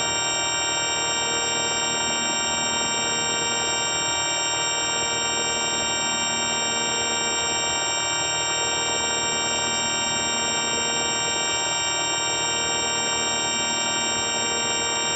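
Steady electronic buzzing tone, rich in overtones, held at one pitch and level without any change.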